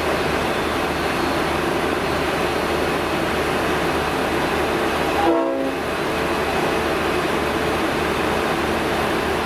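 V/Line diesel train running steadily while standing at the platform. About five seconds in comes a brief, half-second pitched sound like a short horn toot.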